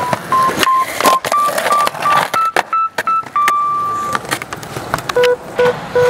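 Background music: a simple electronic melody of short, plain beeping notes stepping up and down in pitch, over sharp percussive clicks.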